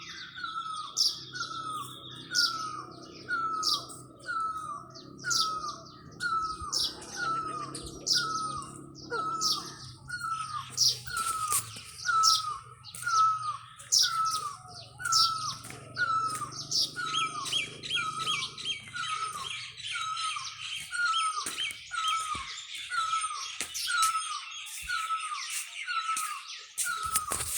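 A bird calling over and over, one short falling note about every second, with other birds chirping higher around it. About two-thirds of the way in a fast, steady trill joins. A faint low hum runs under the calls at first and fades out.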